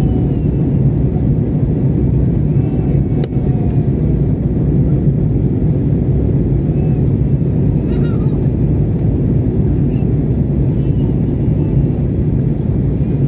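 Steady low roar of an Airbus A320 in flight, heard from inside the passenger cabin: engine and airflow noise.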